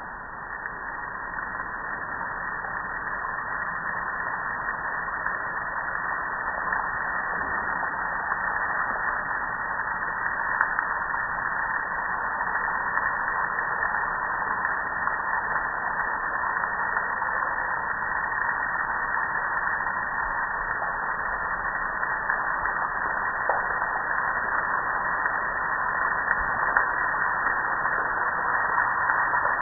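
Water from a garden hose dial spray nozzle on a wide shower pattern, spattering onto a metal gas grill and the concrete beneath it: a steady rush of spray that swells up over the first couple of seconds and then holds.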